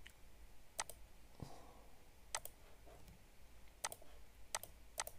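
About five faint, sharp computer mouse clicks, spaced a second or so apart, the last two close together.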